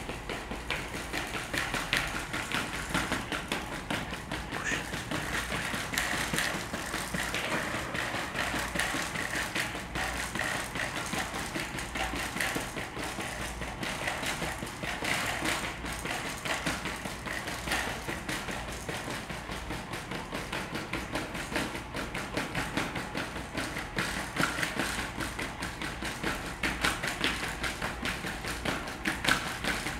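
Solo12 quadruped robot's feet tapping rapidly and unevenly on foam floor mats as it steps to keep its balance while being pushed, over a steady whine from its leg motors.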